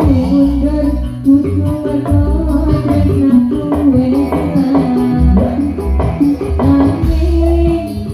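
Live electone dangdut band music with no sung words: a held, sliding melody line over a repeating bass pattern and a steady beat of percussion.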